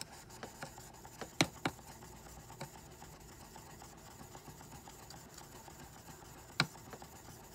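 Knife being honed on an oiled black Arkansas stone with aluminum oxide slurry: faint scraping strokes with small clicks, two sharp clicks about a second and a half in and another near the end.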